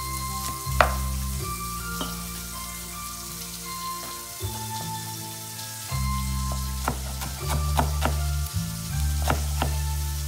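Chef's knife cutting curly kale on a wooden cutting board: scattered sharp knocks of the blade meeting the board, coming faster in the second half, with a crisp rustle of the leaves. Background music with a steady, note-changing bass plays underneath.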